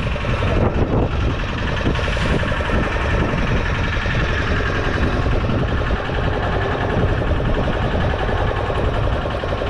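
Fishing boat's engine running steadily, a dense, even mechanical hum.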